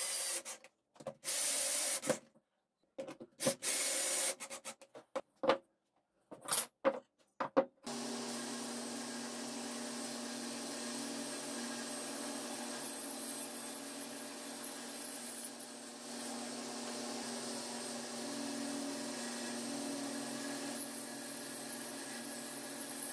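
A cordless drill runs in several short bursts as it drives screws into a wooden block. About eight seconds in, a table saw starts and runs steadily through an angled cut in the block.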